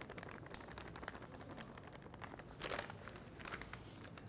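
Plastic flour bag crinkling faintly as it is handled and flour is shaken out of it, with a couple of louder rustles past the middle.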